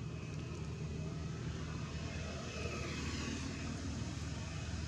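Steady low engine drone, which swells and brightens around the middle before easing off a little.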